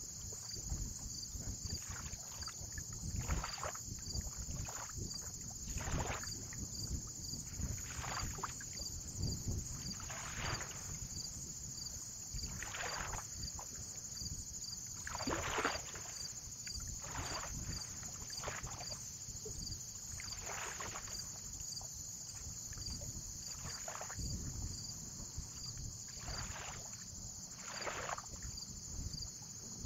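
Small waves lapping at the lake shore, a soft splash every one to two seconds, over a low wind rumble.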